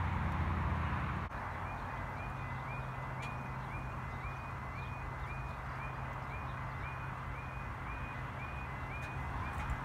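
Railway level crossing warning alarm sounding, a short rising yelp repeating about twice a second, starting about a second and a half in over a steady low hum.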